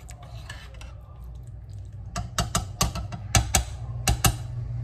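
A slotted spoon stirring soup in a stoneware slow-cooker crock. From about two seconds in comes a quick run of about ten sharp clicks as the spoon knocks against the crock.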